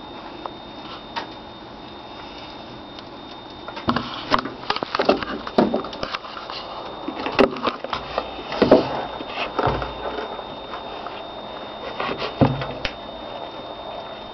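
Handling noise: irregular knocks, taps and rustles, thickest between about four and ten seconds in and again briefly near the end, over a faint steady high whine.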